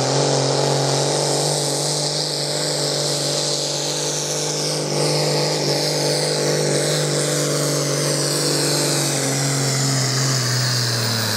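Turbocharged diesel engine of a pulling tractor running flat out under load as it drags a weight-transfer sled, a steady low drone with a high whine above it. Right at the end the revs start to drop off as the pull ends.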